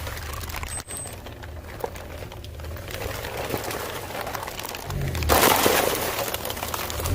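A car tyre rolling over and crushing a crunchy object: a loud crackling, breaking burst starts about five seconds in, over a low steady hum.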